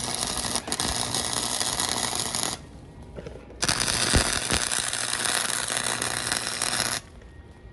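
Electric arc welding on a motorcycle frame: the arc crackles and sizzles in two runs, about two and a half seconds, a pause of about a second, then about three and a half seconds more before it stops.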